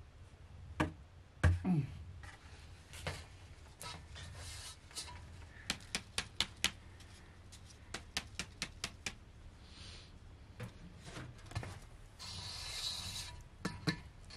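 Flour being sifted through a wooden-rimmed drum sieve over a metal basin: sharp taps and knocks as the sieve's frame is struck to shake the flour through, single knocks at first and then quick runs of four to six. A brief soft hiss comes near the end.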